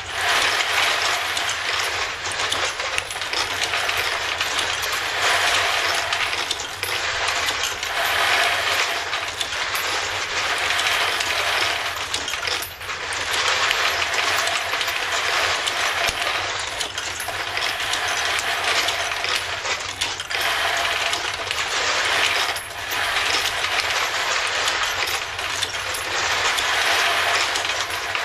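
Automatic 9mm brass case sorter running: a steady metallic rattle and clinking of brass cases being fed through the machine and dropped into its sorting bins.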